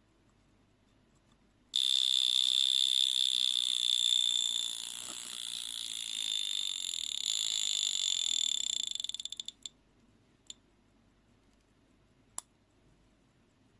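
A 1970s Bel Art Swiss mechanical travel alarm clock's alarm going off: a loud, high-pitched buzz that starts suddenly about two seconds in, runs steadily for about seven seconds, then stutters to a stop. Two single clicks follow.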